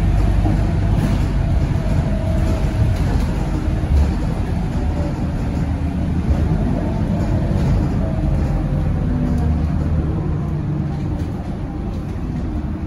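Scania K230UB city bus heard from inside the cabin while under way: its rear-mounted five-cylinder diesel runs steadily, with tyre noise from the wet road and a faint wavering whine. It eases off slightly near the end.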